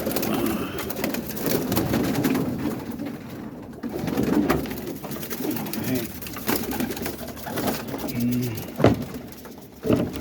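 Roller pigeons cooing steadily in a loft, with light clicks and scuffles throughout and two sharper knocks near the end.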